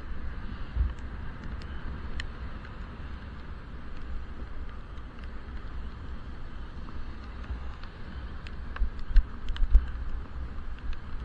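Wind buffeting a helmet-mounted action camera sealed in its waterproof case while cycling, a low uneven rumble over a steady hiss, with stronger gusts near the end. Scattered small ticks run through it.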